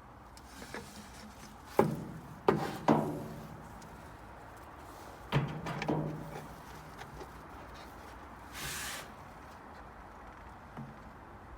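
Sharp knocks and clunks, each with a short ringing tail: three close together about two seconds in, then two more a few seconds later, and a brief hiss near the end.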